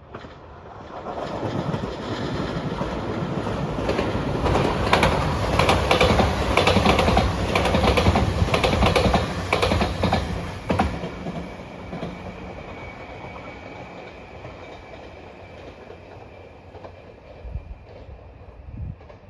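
A train passing over the rails: it builds up over the first couple of seconds, its wheels click rhythmically over the rail joints through the loudest stretch, about four to eleven seconds in, then it fades away.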